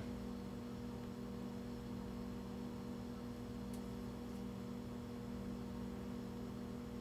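Steady electrical mains hum, a low drone made of several unchanging pitches over faint hiss, with one faint tick a little past halfway.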